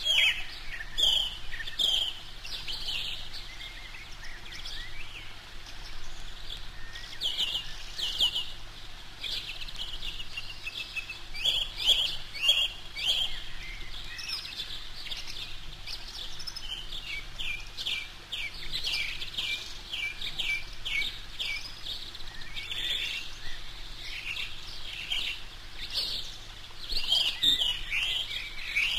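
Eurasian coot chicks peeping on the nest: rapid, high, thin cheeps in clusters, with short lulls between them.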